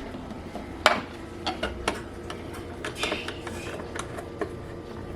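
Scattered light clinks and knocks of kitchen utensils and dishes, such as a measuring spoon and a bowl, handled while baking ingredients are measured. The sharpest knock comes about a second in, and it all sits over a faint steady hum.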